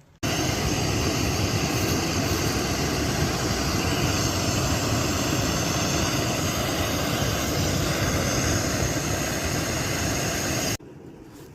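Camp stove burner running at a high flame, a steady hissing roar while heating water to a boil. It starts suddenly and stops suddenly near the end.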